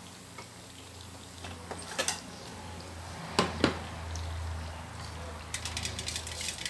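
Bread slices topped with minced pork deep-frying in a steel wok of hot oil: the oil sizzles and crackles, thickening into dense popping near the end. There are a few sharper clicks and scrapes about two and three and a half seconds in, over a low steady hum.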